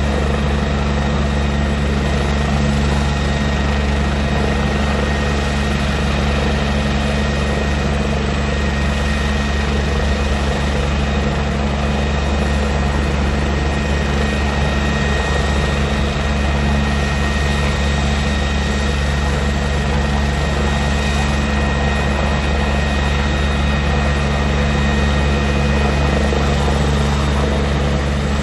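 Military helicopter running on the ground before takeoff: its turbine engine and rotor run steadily, a high whine held over the heavy low rotor noise, with no change in pitch or level.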